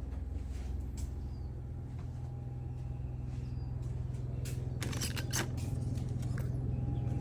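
A steady low engine hum that slowly grows louder, with a few sharp clicks and knocks about five seconds in.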